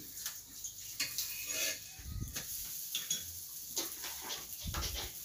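A rolling pin rolling out flatbread dough on a round stone slab, with scattered light knocks and the clink of a spatula on a metal plate.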